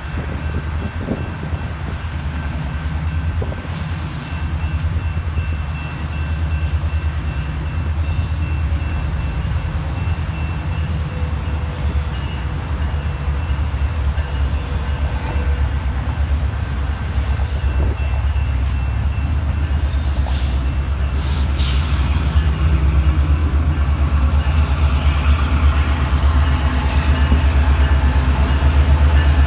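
Train with a steady low rumble that grows louder toward the end, as if approaching, with a few faint steady tones above it.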